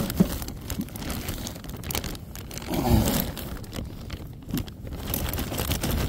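Irregular crinkly rustling and clicking handling noise, with a brief low sound about three seconds in.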